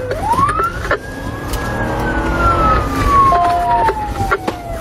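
Police car siren wailing, heard from inside the pursuing patrol car: the pitch sweeps up quickly in the first second, then falls slowly for about four seconds. Engine and road rumble run underneath.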